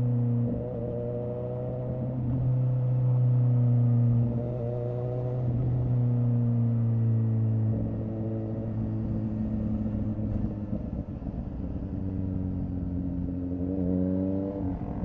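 2017 Suzuki GSX-S750's inline-four engine through a Yoshimura R11 exhaust with the dB killer removed, heard while riding. The note rises and falls with the throttle, loudest in two pulls in the first half, then settles lower before climbing again near the end.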